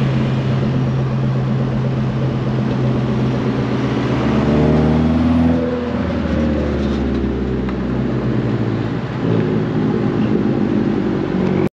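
Fiat 500 Abarth's turbocharged four-cylinder engine running through a catless downpipe and 2.5-inch cat-back exhaust. It holds a steady note, rises in pitch in one rev about four seconds in, and falls back near six seconds. The sound cuts off suddenly just before the end.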